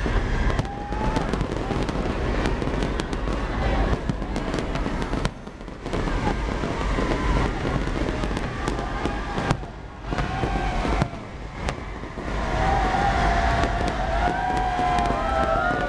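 Aerial fireworks display: a dense, continuous barrage of shell bursts and crackle, with a few brief lulls. Pitched, wavering sounds rise over the barrage in the last few seconds.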